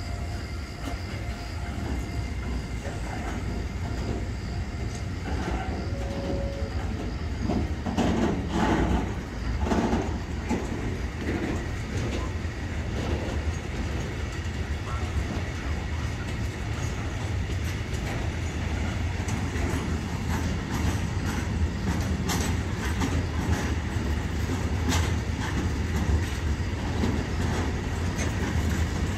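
Long freight train of covered wagons rolling past: a steady low rumble with wheels clattering over rail joints, and a run of louder knocks about eight to eleven seconds in.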